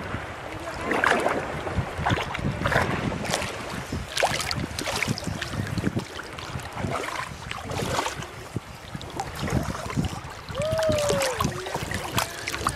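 Shallow seawater sloshing and splashing close to the microphone as a child moves about in it, with wind rumbling on the mic. Near the end a short vocal sound rises and falls in pitch.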